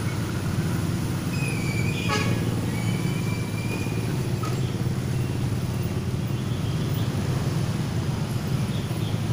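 Steady low hum of road traffic and engines running, with a short high tone and a click about two seconds in.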